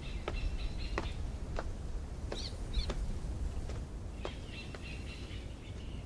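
Birds chirping over a low background noise, with light, evenly spaced footsteps on stone steps.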